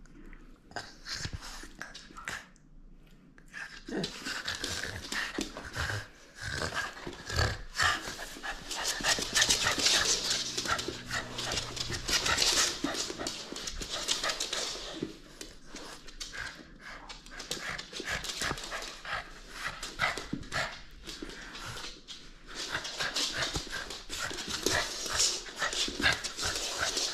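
French bulldog breathing hard and noisily through its short nose as it tugs at a rubber ring toy. The breathing comes in spells, loudest around the middle and again near the end.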